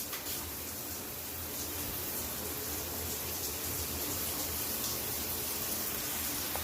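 Water spraying steadily from a shower head, an even hiss.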